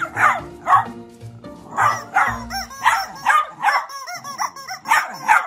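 Small dog barking over and over in short, quick barks while playing with a rubber chicken toy, with background music underneath.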